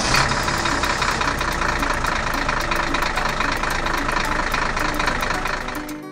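Truck engine running steadily, stopping about six seconds in.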